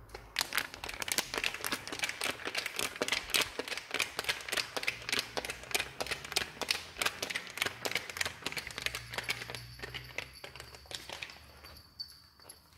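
A plastic bag crinkled rapidly and continuously, a dense crackle of many quick rustles, used as a call to bring cats running; it tails off near the end.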